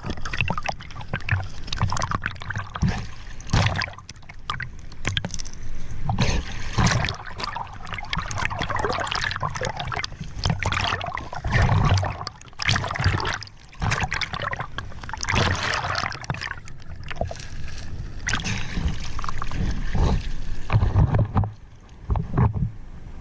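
River water splashing and sloshing in irregular surges, with heavy low thumps mixed in.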